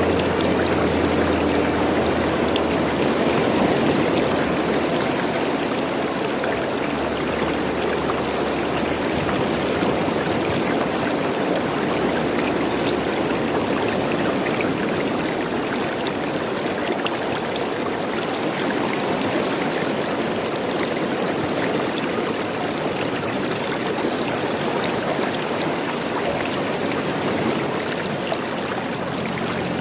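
Running water gurgling and splashing in a steady, continuous flow, like a stream.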